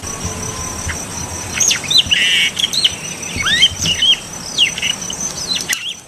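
Songbirds calling with short whistled chirps and slurred up-and-down notes, over a steady high-pitched insect trill. The sound cuts off just before the end.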